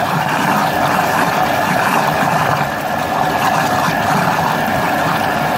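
Thermomix running in reverse mode at about speed 4.5, its blade stirring a wet mass of ground flaxseed, sauerkraut and water. The motor runs steadily and loudly, with the churning of the mixture.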